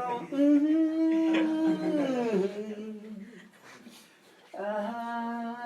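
A voice drawing out long held vocal tones, the first falling away about two and a half seconds in, then a short pause and a second long held tone.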